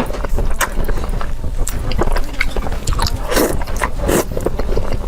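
A person biting and chewing food close to the microphone: a run of quick, sharp wet mouth clicks and crunches, with a couple of longer noisy bursts a little past the middle.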